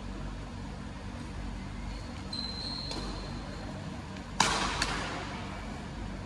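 Badminton rackets striking the shuttlecock in a doubles rally: two sharp hits about half a second apart about two-thirds of the way through, the first the loudest, ringing in the hall. A brief high squeak comes a little before the middle, over a steady background hum.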